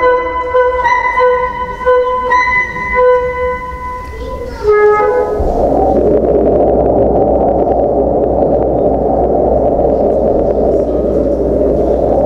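A flute-like wind-instrument melody of held notes from the play's soundtrack, ending about five seconds in with a short falling run of notes. It gives way to a steady rushing noise over a low hum that continues to the end.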